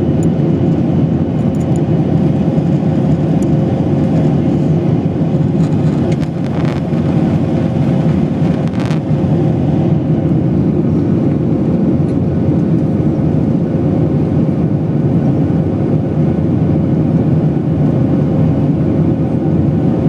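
Jet airliner cabin noise at altitude: a steady low rush of engines and airflow, with a faint steady tone running through it.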